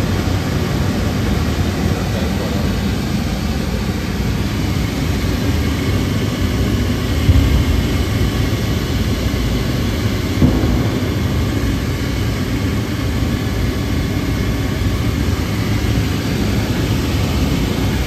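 Diesel burner firing after ignition: its blower fan and oil flame make a loud, steady noise. Two short knocks stand out, about seven and ten seconds in.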